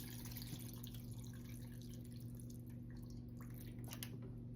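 Water being poured into a bowl of dry ramen noodles: a faint trickle and drip, strongest in the first second or so, over a steady low hum.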